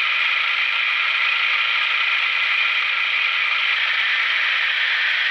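Recreated diesel railcar engine idling sound from an ESU LokSound V3.5 DCC sound decoder in a KATO HO-scale KiHa 82 model, played through the model's small speaker. The idle runs steadily.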